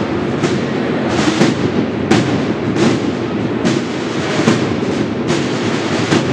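A drum beating a slow, steady stroke a little more than once a second, over a dense noisy wash from the hall.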